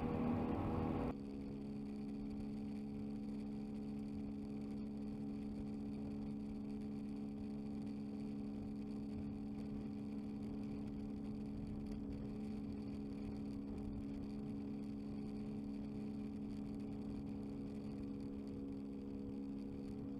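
Steady drone of a car cruising along a highway, heard from inside the car: an even, unchanging hum. About a second in the sound drops in level and thins out.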